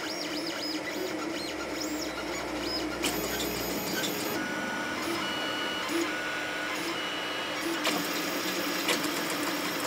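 A 3D printer's LDO stepper motors whine in quick rising and falling tones as the print head darts around at high speed and 35,000 mm/s² acceleration, over a steady hum.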